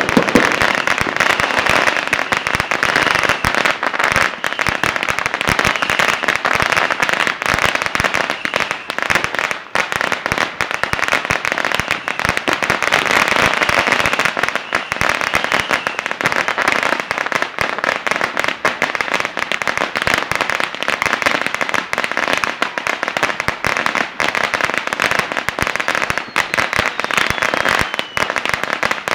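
Firecrackers going off in a dense, continuous crackle of very rapid pops.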